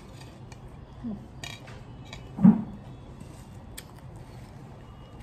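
Spoon and fork clinking and scraping on a dinner plate during a meal, as light scattered clicks. About halfway through comes one short, dull low thud, the loudest sound.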